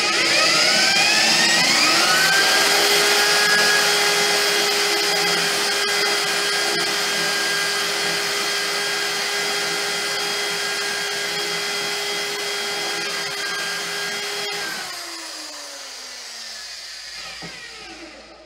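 Corded electric hand drill spinning up, running steadily while boring a hole into a metal bar, then released about fourteen seconds in and winding down with a falling whine.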